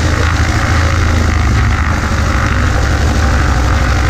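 Cessna 140A's engine and propeller running steadily, a constant low drone.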